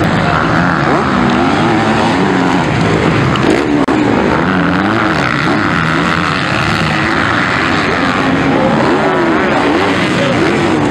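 Several MX2 motocross bikes' engines racing, their pitch repeatedly rising and falling as riders rev, shift and back off through the corners, overlapping. A very brief drop-out about four seconds in.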